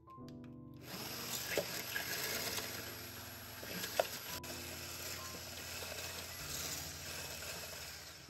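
Electric immersion blender with a wire whisk attachment running in a tall plastic beaker, whipping cream: a steady small-motor whine with the whisk churning the cream. It starts about a second in and stops at the very end, with a couple of sharp ticks as the whisk knocks the beaker wall.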